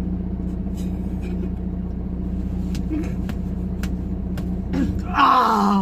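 Car engine idling, a steady hum inside the cabin, with a few faint clicks. A short loud burst of noise comes near the end.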